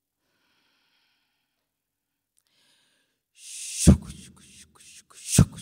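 Near silence, then a woman's breathy "chh" exhalations into a stage microphone, two sharp ones about a second and a half apart, each with a thump of breath on the mic: a vocal imitation of a steam train chugging.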